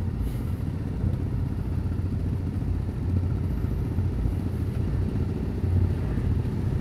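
Motorcycle engines idling, a steady low rumble with no change in pace.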